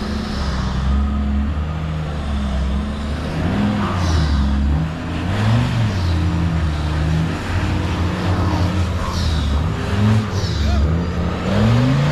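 VW Touareg 5.0 V10 TDI diesel engine working hard under load up a steep, slippery mud bank, its pitch rising and falling again and again as the throttle is worked.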